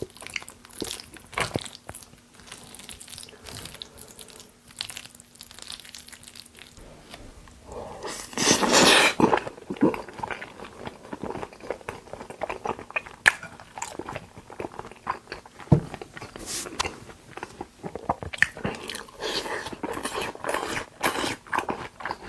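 Close-miked chewing and biting of raw beef, wet mouth clicks and smacks in quick irregular succession. About eight seconds in there is one louder noisy burst lasting a second or so.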